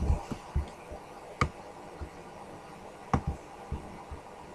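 A few scattered clicks and soft low knocks at a computer desk, with faint room hiss; two sharper clicks stand out, about a second and a half in and about three seconds in.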